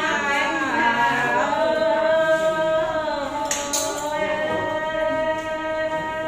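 Voices singing unaccompanied, in long held notes that slide between pitches.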